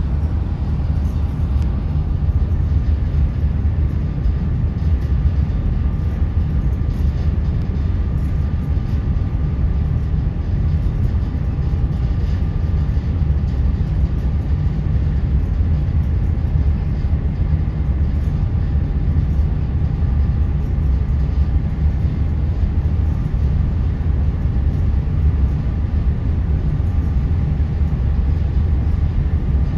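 Steady low rumble of a ro-ro ferry under way, its engines and machinery heard from the open deck, with faint steady hums over it.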